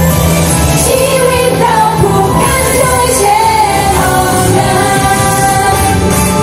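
Thai idol-pop song: female group vocals singing a melody over a loud, continuous pop backing track.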